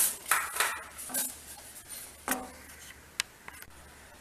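Ladle stirring hot milk in a stainless steel saucepan: several short scraping strokes against the pan, loudest in the first second, then a single sharp clink about three seconds in.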